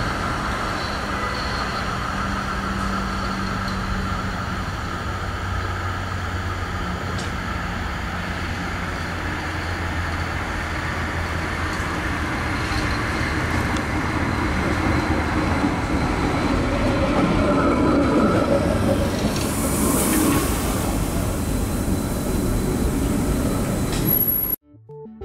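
Stadler Variobahn tram running along the rails as it approaches, its noise growing louder towards a peak about eighteen to twenty seconds in, with a brief hiss around twenty seconds. The sound cuts off suddenly just before the end.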